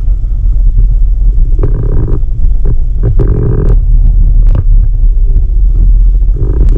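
Steady low rumble of a car being driven, heard from inside the cabin. A few short pitched sounds and light knocks come over it.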